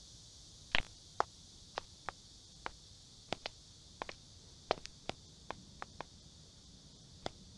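A rat's claws clicking and tapping on a hard tabletop: about fifteen sharp, irregular clicks over a faint steady hiss.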